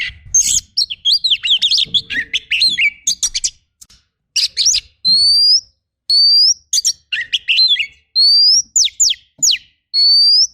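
Oriental magpie-robin (kacer) singing a full song with mimicked phrases: rapid chattering notes first, then after a short pause, clear rising whistles repeated about once a second, broken by chatter, and quick falling sweeps near the end.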